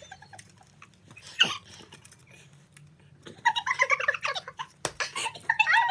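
Foil candy wrapper crinkling as a chocolate is unwrapped, then from about three and a half seconds in, loud high-pitched girls' giggling.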